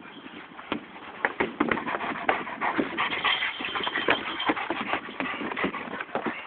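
Chocolate Labrador scrambling against a chain-link kennel fence: a dense, irregular run of rattles, knocks and scrapes that starts about a second in and grows busier.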